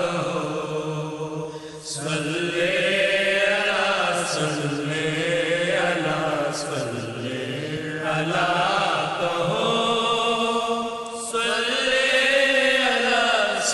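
Urdu naat, a devotional chant sung in long, held, wavering notes with no words picked out and no drumbeat.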